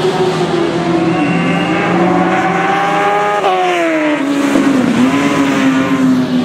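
Road-racing motorcycle engine at high revs passing by at speed, its pitch rising and falling, then dropping sharply about three and a half seconds in as the bike goes past.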